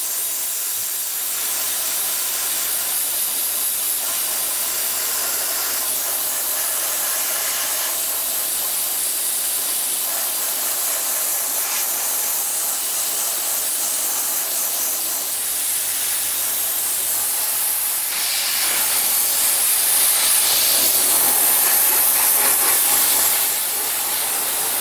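Dry ice blasting gun spraying 1 mm dry ice pellets at 60 psi onto a car's underside: a steady, loud hiss. It grows louder about 18 seconds in, then eases back shortly before the end.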